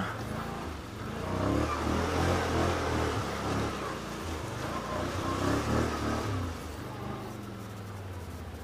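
Can-Am Outlander 500's V-twin engine revving as the ATV drives through muddy puddles, louder through the middle, then easing to a lower, steady run about seven seconds in.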